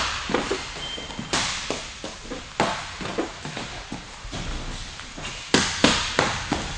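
Boxing gloves and shin guards smacking against a partner's blocking guard during a Muay Thai punch-and-knee drill, with feet shuffling and tapping on the mat. The sharp slaps come at irregular intervals, with a quick run of three or four near the end.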